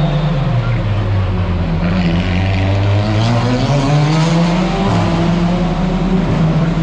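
Racing car engines at high revs on a street circuit. The engine note climbs for a couple of seconds, then drops about five seconds in.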